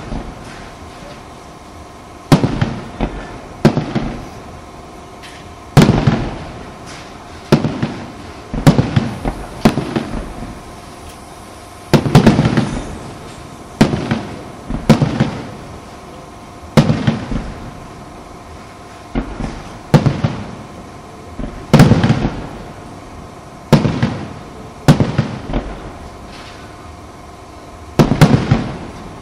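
Aerial firework shells bursting in a display: a sharp bang every second or two, some in quick pairs, each trailing off in a low rolling rumble.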